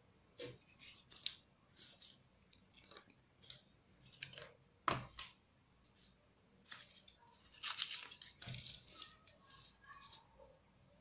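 Faint rustling and crinkling of paper with scattered light taps as rolled-paper flowers are handled and set down; the sharpest tap comes about five seconds in, with a denser patch of rustling near the end.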